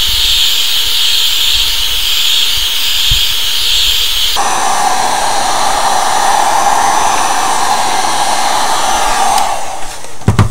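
Heat gun blowing steadily while it warms the tablet's glued-on glass to soften the adhesive. About four seconds in its tone changes abruptly to a lower rush, and it cuts off near the end.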